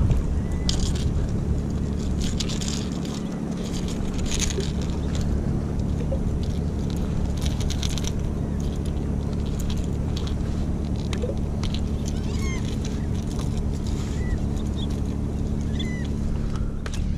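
A boat motor runs steadily, with water splashing against the hull. A few short, high bird chirps are heard, several of them in the second half.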